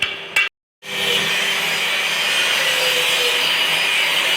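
Stick (arc) welding running a straight bead: a steady crackling hiss that starts abruptly about a second in, after a brief drop to silence.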